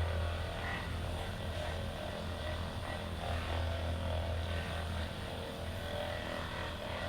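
Hypervolt percussion massage gun running on the patient's muscles with a steady low motor buzz. The hum thins out and becomes uneven about five seconds in.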